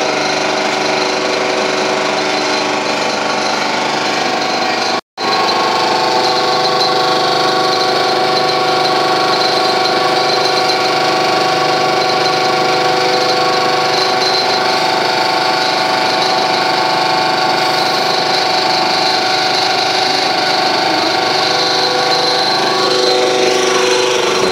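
MB 84 hydraulic motor running on its test rig, fed by its hydraulic supply: a steady mechanical hum and whine made of many even tones. The sound cuts out for an instant about five seconds in.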